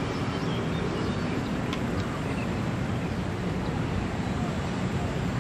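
Steady low outdoor background rumble, with a few faint, short high chirps.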